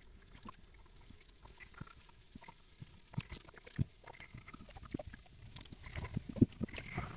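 Shallow sea water lapping and slapping right at the microphone: faint, irregular wet pops and small splashes, a little louder about six seconds in.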